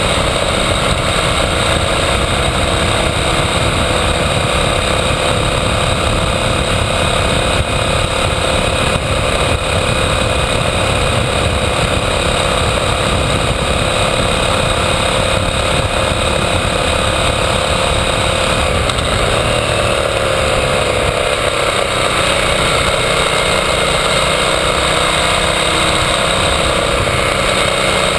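KTM 990 Adventure's V-twin engine running steadily while the motorcycle is ridden at road speed, with wind and road rumble over the bike-mounted camera. The engine note shifts a little about two-thirds of the way through.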